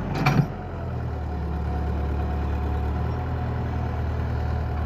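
Heavy-vehicle diesel engine running steadily at low revs, with one short sharp knock about a quarter second in.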